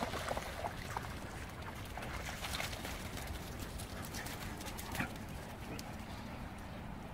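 Groenendael Belgian shepherds and a Kleiner Münsterländer running and chasing each other on wet dirt: a quick, irregular run of paw footfalls, splashing through a muddy puddle at the start.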